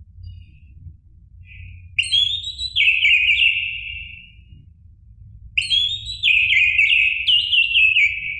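Orange-headed thrush singing two phrases of quick whistled notes. Each phrase steps downward in pitch and lasts about three seconds. The second phrase starts about halfway through, over a faint low hum.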